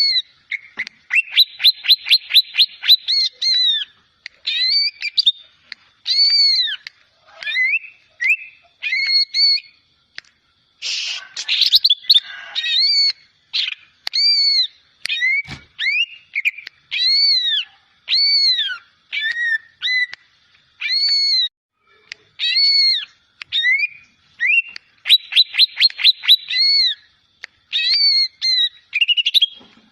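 Cucak ijo (green leafbird) singing a long run of arched, whistled notes, with fast trills near the start and again near the end and a harsher rasping burst about eleven seconds in.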